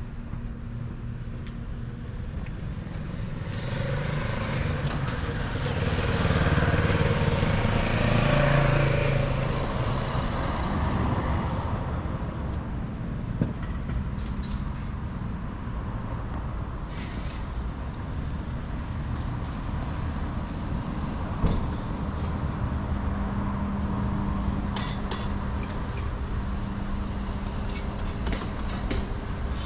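City street traffic: a large road vehicle passes close by, swelling and loudest about six to nine seconds in, then fading. Steady traffic noise follows, with a few sharp clicks.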